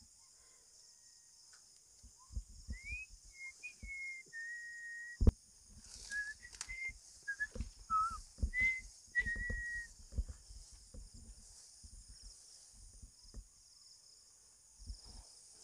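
Someone whistling a loose string of notes, some held and some sliding up or down, over a steady high hiss of insects, with footsteps thudding through grass. A single sharp knock about five seconds in is the loudest sound.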